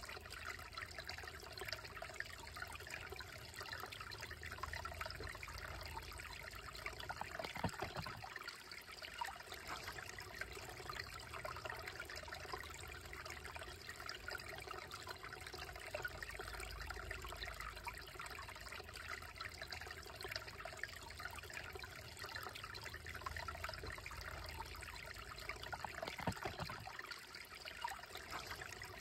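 Shallow creek trickling over rocks in a slow, steady flow, briefly louder twice: about eight seconds in and near the end.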